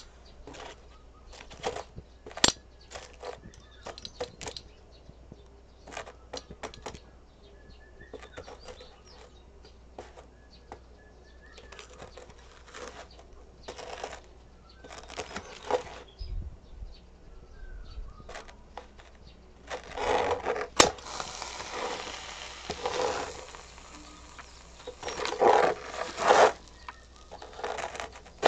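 Steel spatula and tongs tapping, scraping and prying at aluminium hardened over a cup of instant udon, metal on metal: scattered clicks and knocks, then a longer stretch of louder scraping from about twenty seconds in.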